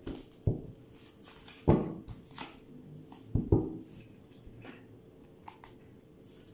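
A deck of oracle cards being shuffled and handled by hand: a string of short knocks and rustles at irregular intervals, the loudest about a second and a half in and again around three and a half seconds in.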